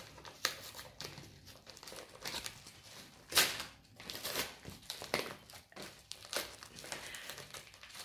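Yellow paper mailing envelope being crinkled and torn open by hand, an irregular run of paper crackles with a louder one about three and a half seconds in.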